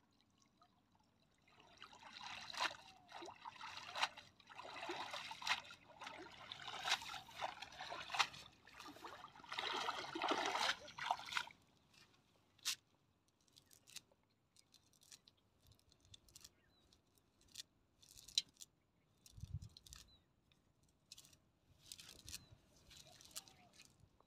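Water streaming and trickling out of a cast net as it is lifted from a pond, lasting about ten seconds. After that come scattered soft rustles and ticks as the wet net is handled over dry straw.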